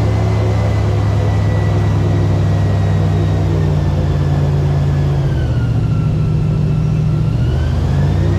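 Airboat engine and propeller running loudly and steadily; about five seconds in the pitch dips, then climbs back up near the end.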